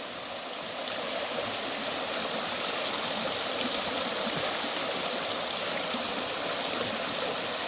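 Creek water running and splashing with a steady rushing sound, the stream flowing again after the dry season.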